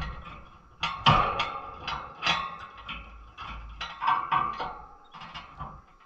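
Irregular metallic clinks and knocks with a short ringing tail, about a dozen in six seconds: a small cage bird hopping and clambering about its wire cage, perches and fittings.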